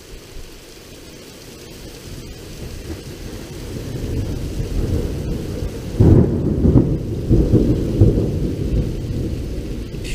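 Thunder from a lightning strike about 1.3 km away: a low rumble swells over the first few seconds, breaks into a loud crack about six seconds in, then rolls on in deep rumbles. Steady rain hisses throughout.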